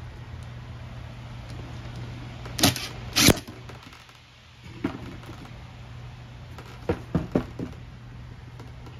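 Cordless power driver driving a screw into the metal turbine cabinet in two short bursts, followed by a few light clicks and knocks as parts and tools are handled on the bench.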